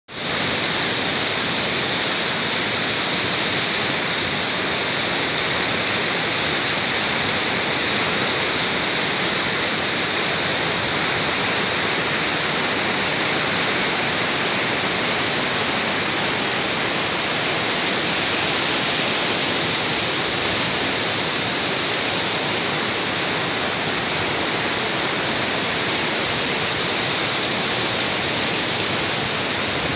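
Whitewater river rapids rushing: a steady, unbroken hiss of churning water.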